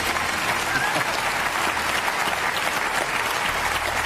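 Studio audience applauding, a dense steady clapping that holds at one level.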